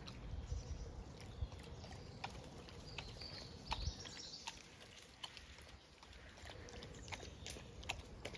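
Footsteps on dry leaf litter and twigs: faint, irregular crackles and small snaps.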